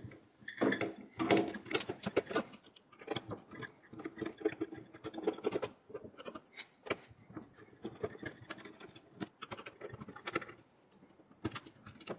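A screwdriver turns out the mounting screws of a CPU tower cooler on a workstation motherboard, with small metal parts being handled. It makes irregular small clicks, ticks and scrapes, and a couple of sharper clicks come near the end.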